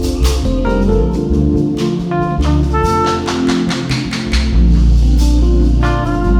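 Trumpet playing a melody over a live band with a drum kit keeping a steady beat and a heavy bass line underneath.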